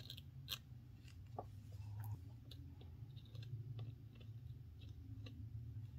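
Faint, scattered small clicks and ticks of a pointed metal tool scraping metal chips off the end of a thread tap that pokes through an eyeglass frame's hinge, over a low steady hum.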